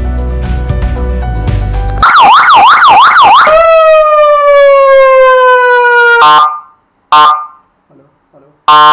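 Background music, then a 12V 80W seven-tone car siren speaker sounding its tones. First comes a fast warbling siren, about three sweeps a second, then a long falling wail that cuts off. A short blast follows, and a steady alarm-like tone begins near the end.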